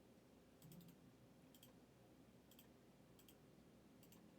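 Faint computer mouse clicks, several in quick pairs, about once a second, over near silence.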